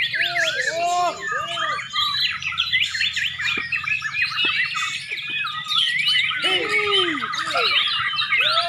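Several white-rumped shamas singing at once: a dense, overlapping chorus of fast, varied whistles and chirps. Lower swooping calls come in twice, near the start and again about two-thirds of the way through.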